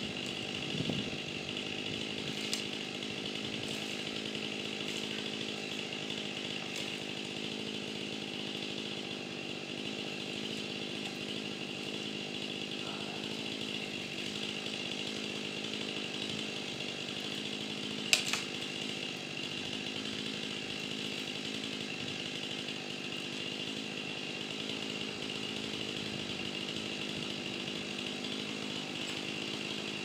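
Two-stroke chainsaw running at a steady, even speed on a cedar tree, with a single sharp knock about eighteen seconds in.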